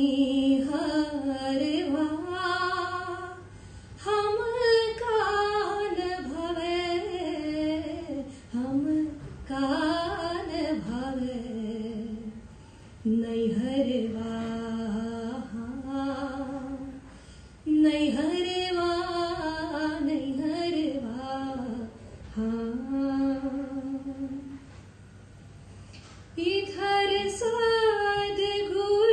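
A woman singing a devotional bhajan, one voice in long melodic phrases broken by short pauses, with a longer pause near the end before the next phrase begins.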